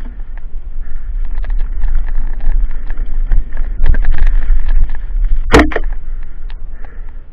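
Mountain bike rolling fast down a dirt forest singletrack. There is a steady low rumble of wind on the camera microphone, with a scatter of clicks and rattles from the bike over the ground, and one sharp knock about five and a half seconds in.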